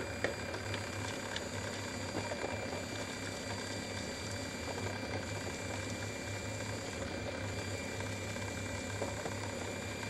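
Food processor motor running steadily while garlic cloves are dropped through the feed tube onto the spinning blade to be chopped, with a few light clicks near the start as cloves hit the blade.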